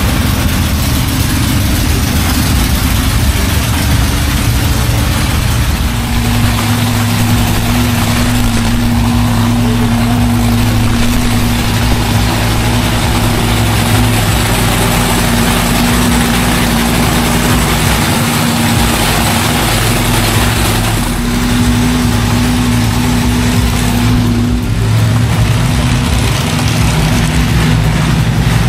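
An engine idling steadily under a constant background noise; a steadier low engine note sets in about six seconds in and drops away near the end.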